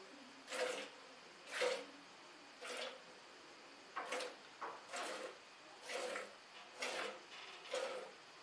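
Milk squirting into a steel bucket as a cow is milked by hand, a short spurt about once a second.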